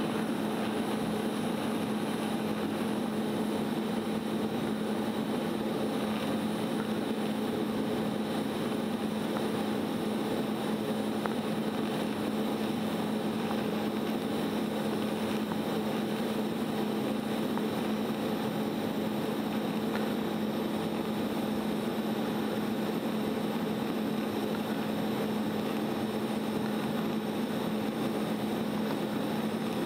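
TIG welding arc running steadily while brazing cast iron with aluminum bronze filler rod: a continuous, even buzzing hiss with a steady low hum, unchanged throughout.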